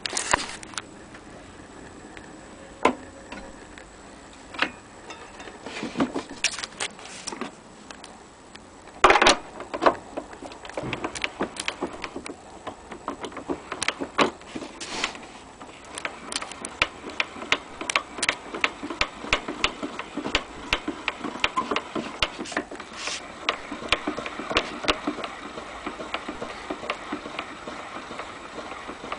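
Scattered metallic knocks and clicks of gramophone parts being handled, then the winding crank of an HMV Model 102 portable gramophone being turned, with rapid, dense ratchet clicking as the spring motor is wound.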